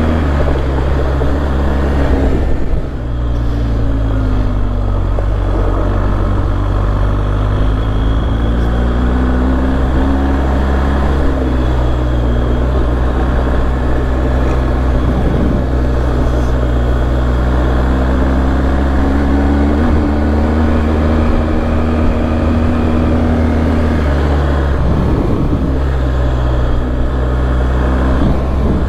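Adventure motorcycle engine pulling at low revs while riding a trail, its pitch rising and falling gently with the throttle, over a steady rushing noise.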